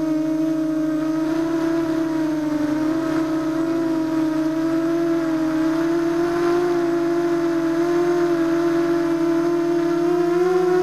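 ZMR250 FPV racing quadcopter's four brushless motors and propellers whining steadily in flight, heard from the camera mounted on the drone. The pitch wavers gently with throttle and rises briefly near the end.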